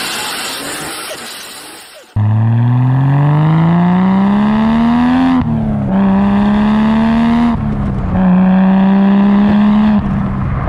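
A Ford FG X Falcon XR6 Turbo's turbocharged straight-six and exhaust, heard after a fading intro sound and cutting in sharply about two seconds in. It accelerates hard with the engine pitch climbing steadily, and two upshifts follow, one a little past halfway and one soon after. The car holds at speed, then eases off near the end.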